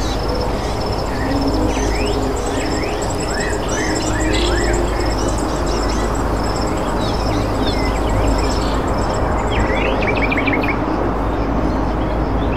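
Small birds chirping and twittering, many short quick calls overlapping, over a steady low rumble.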